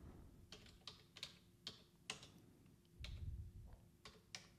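Faint computer keyboard keystrokes: about eight separate key presses, unevenly spaced, as a short command is typed. A brief low rumble comes about three seconds in.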